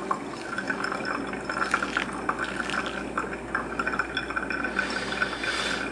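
Hot water poured in a thin stream from a gooseneck kettle onto coffee grounds in a paper-lined pour-over dripper, a steady trickling splash. This is the main pour after the bloom, with the stream of water itself stirring the grounds.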